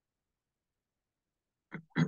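Silence, broken near the end by a brief sound from a man's voice, a short syllable or two.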